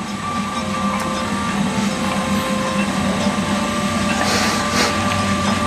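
Steady mechanical hum with a low drone and a few fixed tones, and a brief soft rustle about four seconds in.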